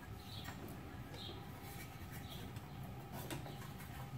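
Faint handling sounds of a lawn mower's plastic engine shroud being worked loose by hand: a few small clicks and soft high squeaks, about one a second.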